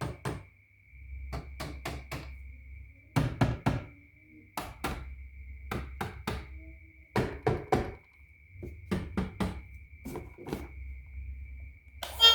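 Groups of two or three sharp knocks, repeated about every second and a half over a faint steady high tone, like hard objects being knocked or set down on a surface. Music starts just before the end.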